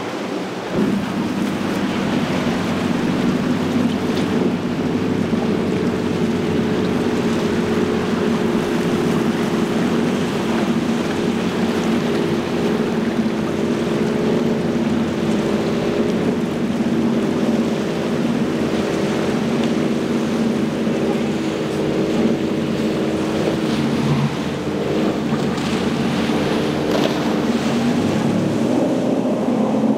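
Motorboat engines running steadily at speed, with rushing water and wind. The engine pitch shifts a little near the end.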